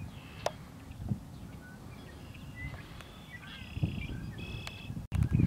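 Outdoor farmyard ambience: small birds chirping and twittering in the background over a low rumbling noise, with a sharp click about half a second in. The rumble gets louder just before the end.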